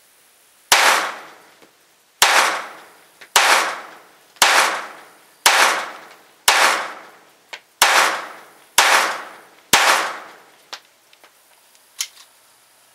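Phoenix Arms HP22A .22 rimfire pistol fired nine times in slow, steady succession, about a shot a second, each crack trailing off in a short echo. A few light metallic clicks follow near the end as the pistol is handled.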